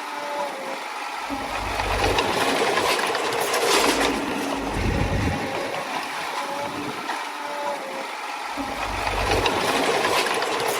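Small Komatsu D20A crawler bulldozer working, its diesel engine running with a steady clatter while the low engine rumble swells and eases a few times.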